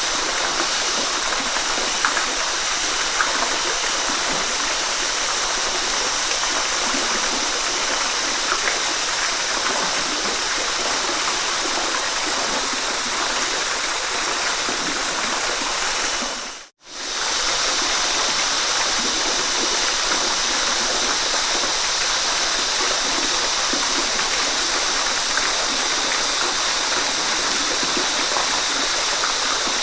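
Waterfall: water pouring and splashing in a steady, hissy rush with a few faint splashy ticks. The sound cuts out for an instant about two-thirds of the way through, then returns unchanged.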